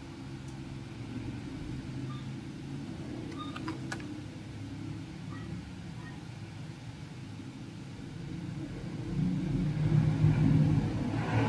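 A low, steady engine-like rumble that grows louder about nine seconds in, with a few faint clicks around the middle.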